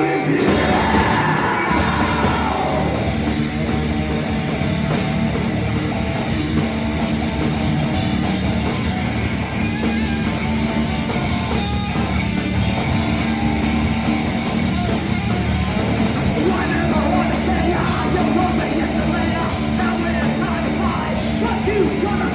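Live rock band playing loud, punk-leaning music, with shouted vocals over electric guitars.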